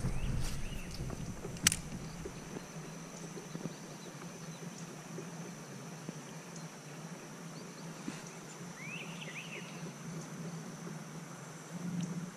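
Riverside woods: a steady high-pitched insect drone, with a few short bird chirps, the clearest a quick run of chirps about nine seconds in. A single sharp click comes near two seconds in, while a low rumble fades out over the first two seconds.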